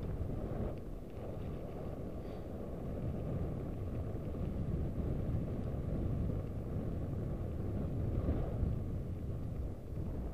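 Wind buffeting the microphone while a mountain bike is ridden: a continuous low rushing rumble that swells and eases but never stops.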